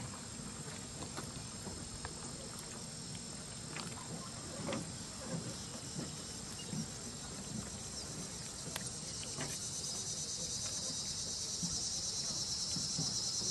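Insects chirring in a steady, high-pitched chorus with a fast pulsing rhythm that grows louder over the last few seconds, with a few faint knocks and ticks.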